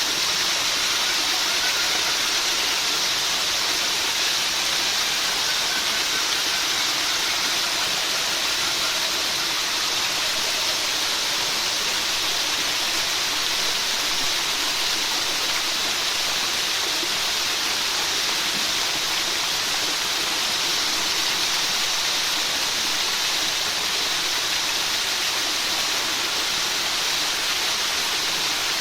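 Steady rain falling, a constant even hiss with no separate drops, thunder or changes.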